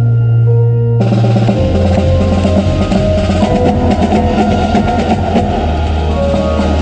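Indoor drumline of snare drums, tenor drums and bass drums breaking into a fast, dense passage about a second in, over held low tones and keyboard notes from the front ensemble.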